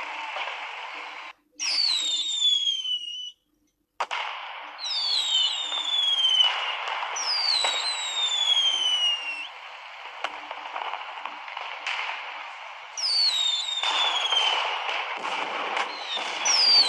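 Fireworks crackling continuously, with whistling fireworks giving several falling whistles of a second or two each. The sound cuts out abruptly twice in the first few seconds, and a few sharp cracks stand out.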